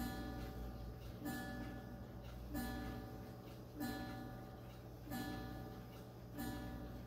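Howard Miller Jennison triple chime wall clock striking twelve: single hour strikes of the same pitch, evenly spaced about every 1.3 seconds, each ringing on into the next. Six strikes fall here.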